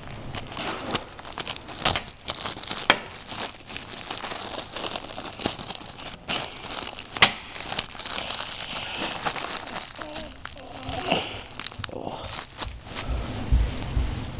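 Packaging being handled and unwrapped: continuous crinkling with sharp crackles and tearing sounds.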